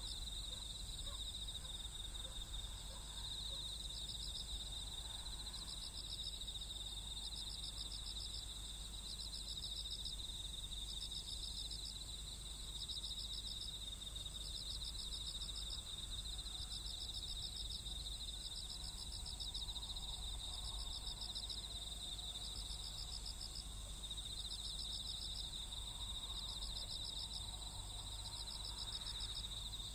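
Night insects singing in the fields: a steady high trill, with a pulsed chirp repeating every second or two throughout.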